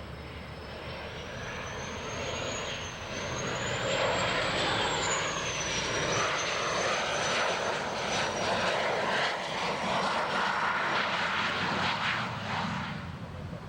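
Fixed-wing aircraft engines passing, with a high whine that wavers up and down in pitch over a dense rushing noise. The sound grows louder about three seconds in and fades near the end.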